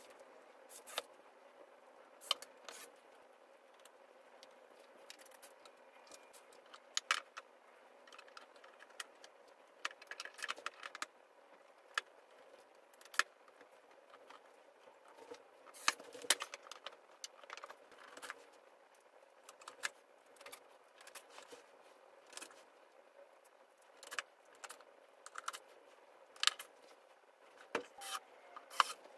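Scattered small clicks and metallic clinks of flat-pack furniture assembly: screws and fittings being handled and driven into particleboard panels with a screwdriver.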